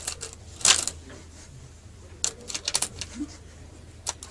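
Metal coins clinking and clattering against each other in a cash register drawer's coin tray as a cat's paw rakes and scoops them. A loud clatter comes just under a second in, a quick run of clinks around two to three seconds in, and a couple more near the end.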